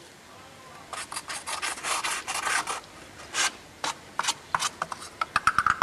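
Crunching and rasping rubs from footsteps in fresh snow as the camcorder is carried, with handling noise on its microphone. They come densely at first, then as separate strokes and a quick patter near the end.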